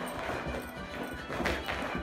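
Background music with steady sustained notes, and a brief, louder sound about one and a half seconds in.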